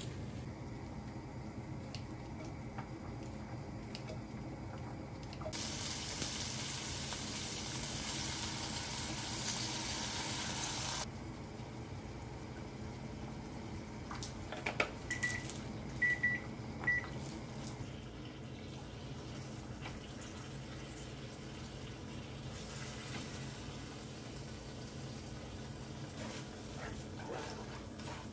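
Kitchen tap running for about five seconds, then shut off. A few seconds later comes a quick run of short, high electronic beeps from an appliance, over a steady low hum.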